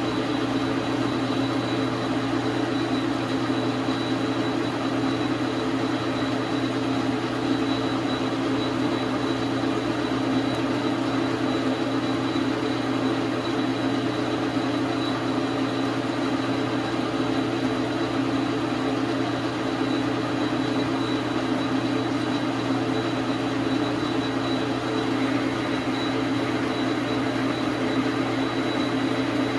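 Dar Sin 12 x 37 manual metal lathe running steadily, a constant motor and gear hum with a thin high-pitched whine over it.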